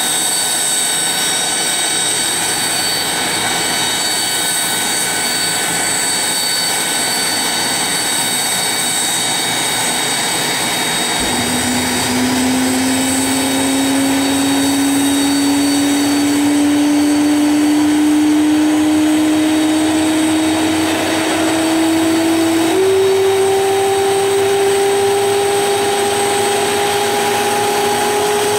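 Boeing 737-500's CFM56-3 jet engine starting: a steady high whine throughout, then about eleven seconds in a lower tone comes in and climbs slowly as the engine spools up, stepping up in pitch about two-thirds of the way through.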